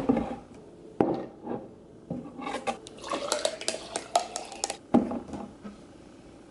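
Bottles knocked down on a wooden counter, then a quick run of ice cubes clinking against a glass jar as cold brew coffee is poured over them. Another bottle is set down with a knock about five seconds in.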